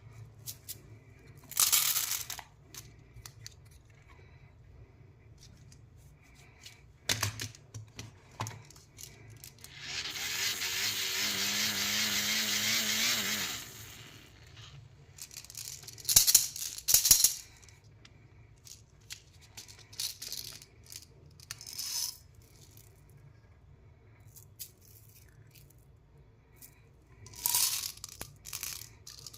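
Candy packets being handled and opened: plastic wrappers crinkle in short bursts and sweets rattle. A louder, steady stretch of rustling lasts about three and a half seconds in the middle.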